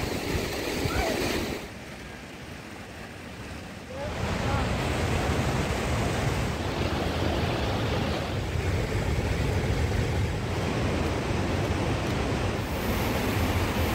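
Steady outdoor rushing noise with a strong low rumble; it drops away about two seconds in and comes back louder and steady about four seconds in.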